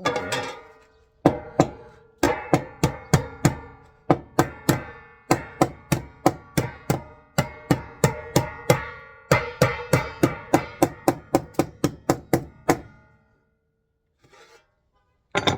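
Hammer beating on a sheet of tin, about three blows a second with a metallic ring after each, folding the sheet's sharp edge over flat. The blows stop about 13 seconds in, and one more strike comes just before the end.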